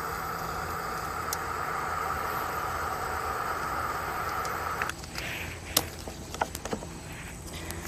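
A handheld heat tool runs with a steady rushing sound while melting the refrigerator's plastic, then cuts off suddenly about five seconds in. A few light clicks and taps follow.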